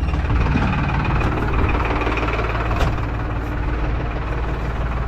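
Diesel tractor engine idling steadily, with a single sharp click about three seconds in.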